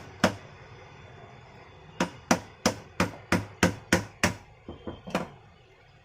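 Hand-hammer blows: one strike, a pause of almost two seconds, then a run of about eight evenly spaced strikes, roughly three a second, and a few lighter taps.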